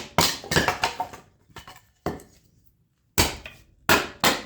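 Split oak firewood knocking and clattering: a quick run of sharp wooden knocks, a pause of about two seconds, then more knocks.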